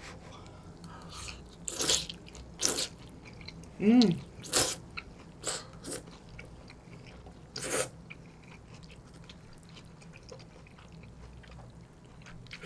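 Glass noodles being slurped: about half a dozen short, sharp slurps over the first eight seconds, with quieter chewing after them. A short hum about four seconds in is the loudest sound.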